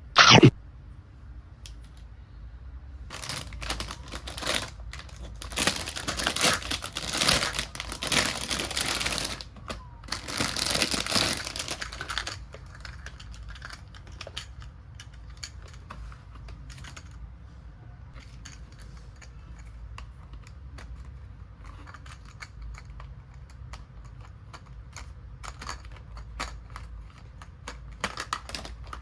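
Toy kitchen set pieces being unpacked and handled: a sharp click at the start, then several seconds of dense rustling and clattering, then lighter scattered taps and clicks.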